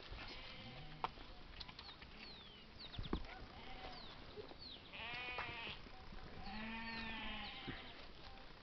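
Sheep bleating, twice: once about halfway through and again a second and a half later, each call wavering and held about a second. Short high falling chirps and a couple of faint knocks come in between.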